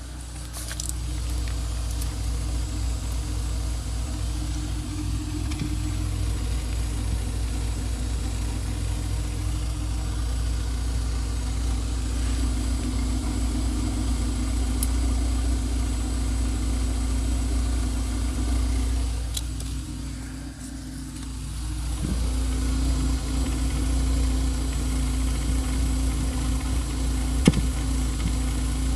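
Renault Clio 197's 2.0-litre four-cylinder engine idling steadily, with the sound dipping for a couple of seconds about twenty seconds in and a single sharp click near the end. The owner reports this running as having a strange noise in the engine bay and a hesitant exhaust.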